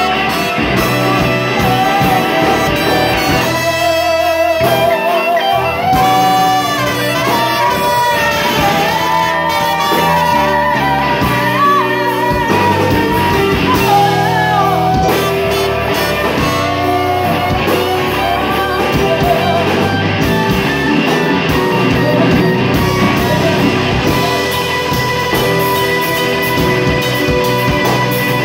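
Live band playing: a woman singing into a microphone over a horn section of trumpet and saxophone, with drums and guitar.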